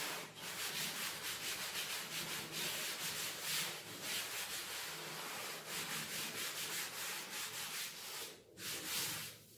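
Chalk being wiped off a chalkboard in repeated quick back-and-forth strokes, a dry rubbing scrub that breaks off briefly near the end before a last few strokes.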